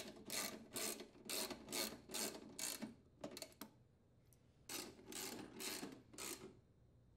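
Socket ratchet wrench tightening the fuel tank's mounting bolts, in repeated short ratcheting strokes about two a second. There is a pause of about a second near the middle, then another run of strokes.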